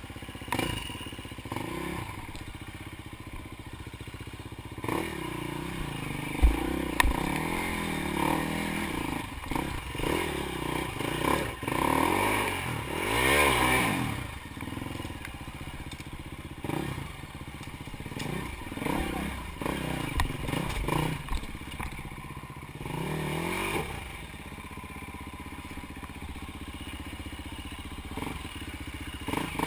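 Enduro dirt bike engine revving up and falling back in repeated bursts as it crawls over rocks, loudest about halfway through. Clattering and knocks of the bike against stone come in between.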